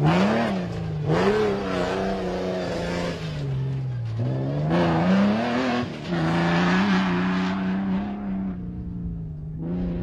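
Off-road race pickup's engine running hard, its pitch rising and falling several times, then holding steady over the last few seconds.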